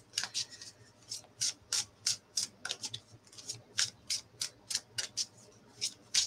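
A deck of oracle cards being shuffled by hand: a run of short papery swishes as the cards slide against each other, about three a second, unevenly spaced.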